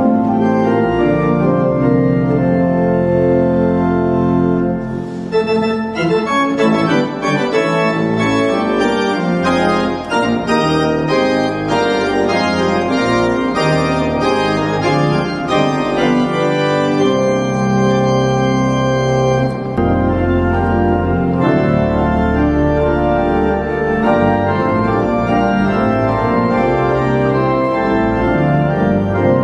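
Eisenbarth pipe organ of St. Stephen's Cathedral in Passau playing a loud, full-voiced piece with many notes sounding at once. Deep pedal bass comes in strongly in the second half.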